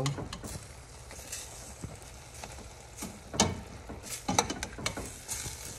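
A utensil stirring shredded cabbage in a stainless steel pot, with scattered clicks and knocks against the pot, several of them close together near the end.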